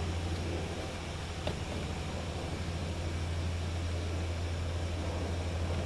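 Echo CS-355T two-stroke top-handle chainsaw idling steadily with a low, even hum after a cut.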